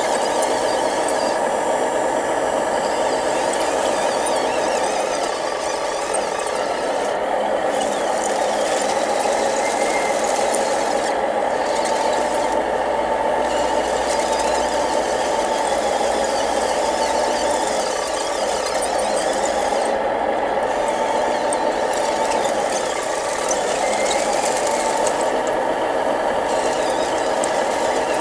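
Electric motors and gearing of a radio-controlled model truck, running with a steady high whine.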